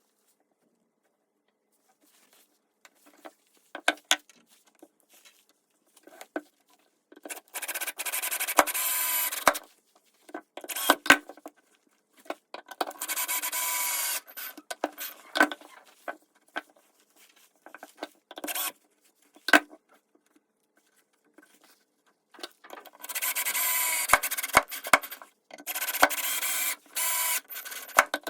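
Four long rubbing or scraping strokes, each about two seconds, with light knocks and clicks between them: hand work on wood at a workbench.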